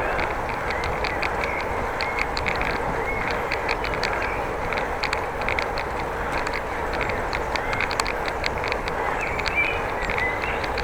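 Steady rushing noise of a bicycle being ridden, with many short high ticks and a few faint high chirps scattered through.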